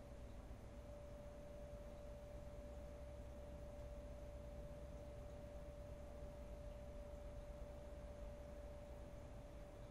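A faint, steady single-pitched tone held without a break, over low background rumble and hiss.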